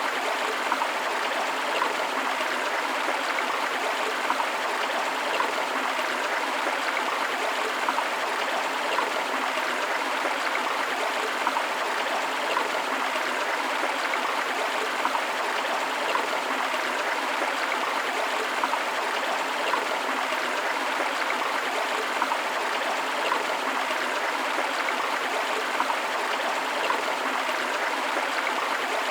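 Forest river flowing steadily over rocks, a continuous rushing and babbling of water with small splashes.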